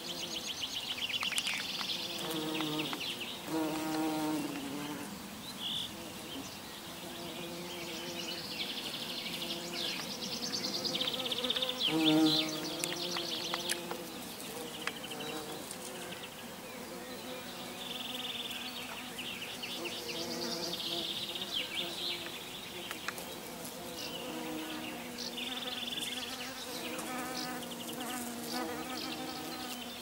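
Insects calling in repeated short bursts of rapid, high-pitched pulses. A few low pitched tonal sounds come in between, the loudest about twelve seconds in.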